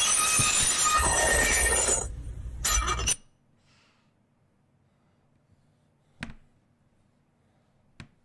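Fork scratching a metal plate, played as a sound effect: a loud, high-pitched screech that breaks off briefly about two seconds in, comes back, then cuts off suddenly about a second later. Near silence follows, with two faint clicks.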